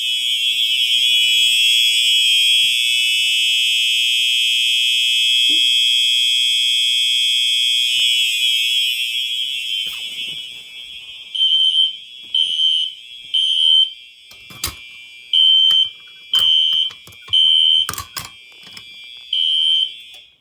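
Fire alarm horns sounding in alarm. A steady, continuous electronic horn tone fades out about halfway through. A horn then beeps in a temporal-three pattern (three beeps, a pause, three more), with a few sharp clicks among the beeps.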